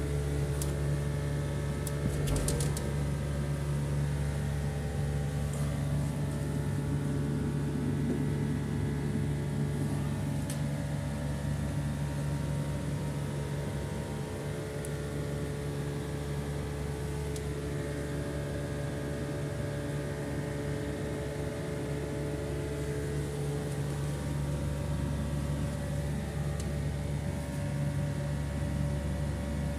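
Steady electrical hum from a working star-delta starter panel that runs a 35 kW pump motor. A few light clicks sound about two seconds in.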